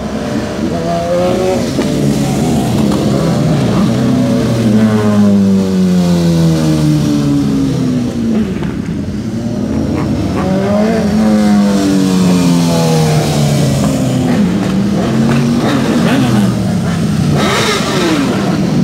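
Several sport motorcycles riding past one after another, their engines revving up and dropping in pitch as each goes by, in repeated waves.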